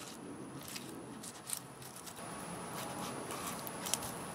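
Fillet knife slicing through a largemouth bass on a wooden cutting board: quiet wet cutting and scraping, with a few small clicks.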